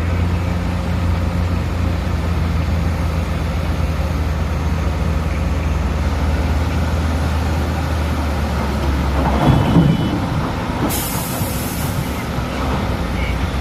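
Heavy diesel machinery running: a steady low engine drone that drops away about nine seconds in, with a brief louder knock just after. Near eleven seconds a short hiss of released air, about a second long, from a truck's air brakes.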